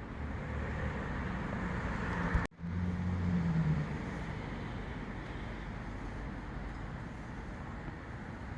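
Steady outdoor background noise with a vehicle engine's low hum passing, its pitch falling about three and a half seconds in; the sound cuts out for a moment about two and a half seconds in.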